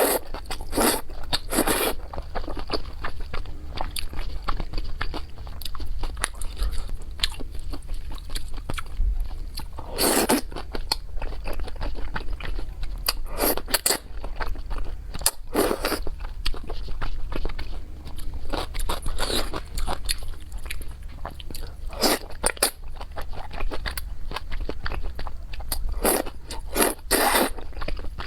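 Mouth sounds of someone eating crisp chili peppers: biting and chewing throughout, with louder, sharp crunches of bites coming every one to several seconds at an uneven pace.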